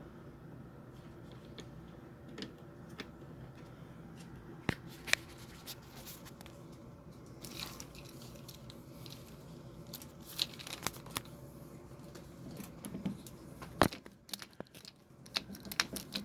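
Scattered small clicks, taps and rustles of hands working a new flow switch into an electric tankless water heater, over a steady low hum. A few sharper clicks come about five seconds in and again near the end.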